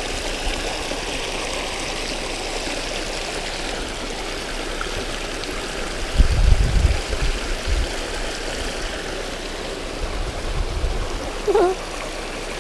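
River water rushing and splashing over rocks in a steady flow, with a few low rumbles around the middle.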